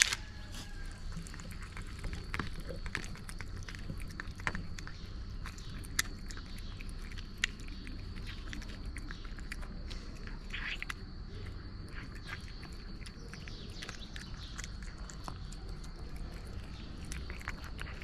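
A cat chewing and licking wet cat food from a plastic tray: many small, irregular clicks.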